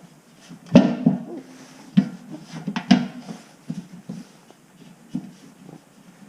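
Irregular knocks and clunks from an old washing machine being handled, with the loudest about a second in and again around two and three seconds in.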